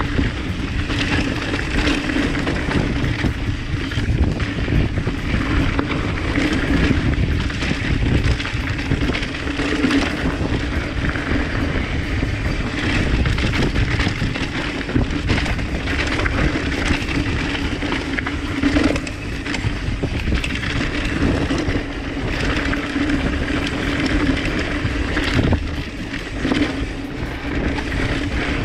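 Mountain bike descending a dirt singletrack at speed: wind rushing over the chest-mounted GoPro's microphone, tyres rolling on dirt, and the bike rattling over bumps, with a steady hum underneath.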